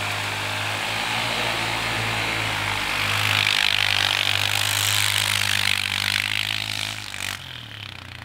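Yamaha Grizzly 400 ATV engine running under throttle as the quad is ridden through snow, growing louder about three seconds in and dropping away around seven seconds.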